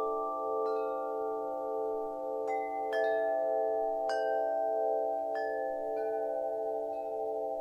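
Ambient music: a held drone of several low tones with a slow pulsing, over which chimes are struck about seven times, each note ringing out and fading.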